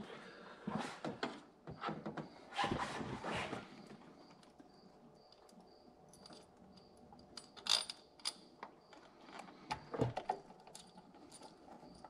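Scattered small metallic clicks and rattles of bolts and hardware being handled and fitted while a throttle body is mounted onto a TPI intake by hand. The clicks come in short clusters about a second and three seconds in, with a sharp single click near eight seconds and a few more around ten seconds.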